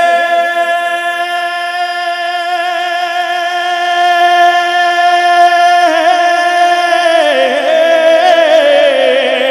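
Man singing a naat with no instruments, holding one long note for about six seconds, then ornamenting it with a wavering run that steps lower near the end.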